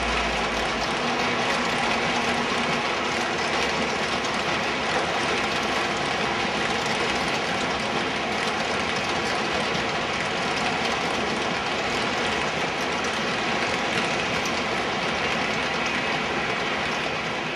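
O-gauge model train of heavyweight passenger cars rolling past on three-rail track: a steady rolling clatter of metal wheels on the rails.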